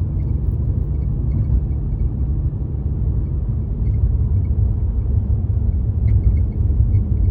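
Low road and tyre rumble inside the cabin of a moving 2019 Mercedes-Benz CLS450, with faint short high chirps or squeaks now and then, a cluster of them near the end. The chirping comes only over uneven road and bumps, and the owner has ruled out the engine, dash, door and roof panels, cup holder, A/C and infotainment.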